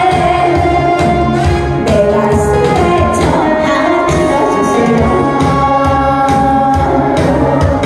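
A woman singing a Korean song into a microphone, amplified through a PA speaker over backing music with a steady beat. Her voice is clear and high, holding and sliding between notes.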